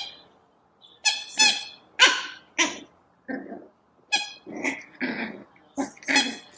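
Cavalier King Charles Spaniel puppy giving short, sharp barks and yaps in play, about ten in a row at an uneven pace.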